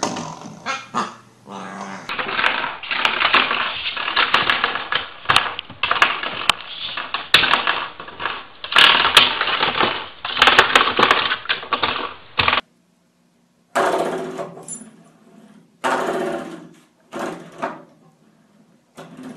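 Puppies growling while they bite and bat at spring door stops, the coiled metal springs twanging and rattling; short busy bursts of sound with a brief break about twelve seconds in.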